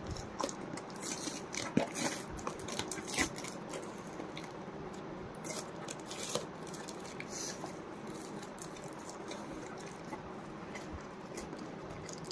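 Cardboard parcel box being pulled and torn open by hand: scattered crackles, scrapes and clicks of cardboard and tape, busiest in the first few seconds and then softer rustling.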